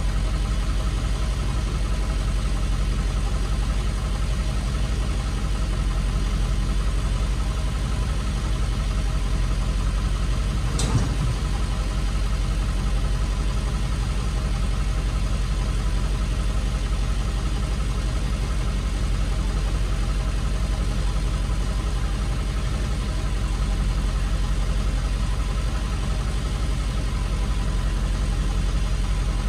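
Tow truck's engine idling steadily, heard from inside the cab, with a single short click about eleven seconds in.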